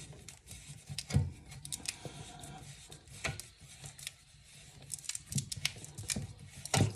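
Scattered clicks and knocks of hands working on toilet tank parts while undoing a fitting, with the loudest knocks about a second in and near the end.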